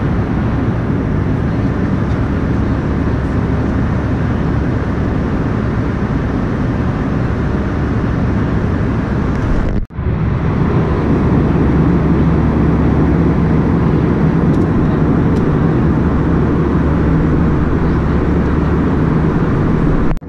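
Airbus A320 cabin noise in cruise: the steady roar of engines and airflow. About halfway through it drops out for an instant, then comes back a little louder with a low hum.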